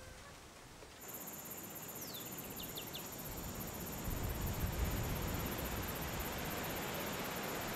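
Outdoor ambience: a steady high hiss with a fast-pulsing high buzz, starting abruptly about a second in. A few short high chirps come about two to three seconds in, and a low rumble builds from about four seconds in.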